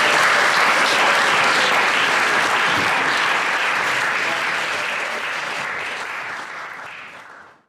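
Audience applauding, the clapping slowly thinning and fading out over the last few seconds before cutting off.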